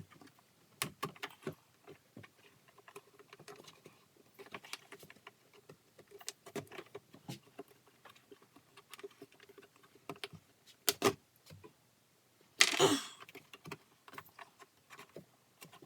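Scattered light clicks and knocks of hand tools and parts being handled while a Sea-Doo GTX's carburetor box is worked open, with a sharper knock about 11 seconds in and a short scraping rustle about a second and a half later.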